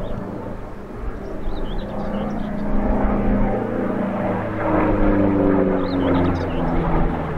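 Republic P-47D Thunderbolt's Pratt & Whitney R-2800 radial engine droning as the fighter flies its display overhead, growing louder from about two seconds in, with its pitch shifting as it banks past.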